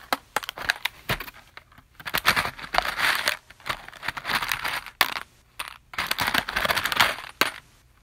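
Handful of plastic push pins being shaken, rattling in repeated bursts of quick clicks with short pauses between them.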